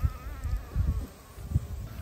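A fly buzzing close by: a faint wavering hum that fades out about halfway through, with low bumps underneath.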